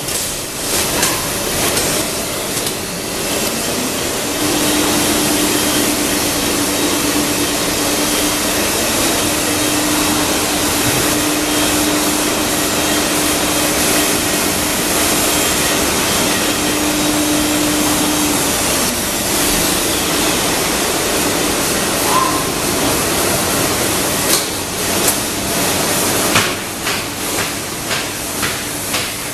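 WEEKE CNC woodworking machining centre running, with a loud steady rushing hiss. A steady mid-pitched spindle tone sets in a few seconds in and stops after about fourteen seconds. A cluster of sharp clicks and knocks comes near the end.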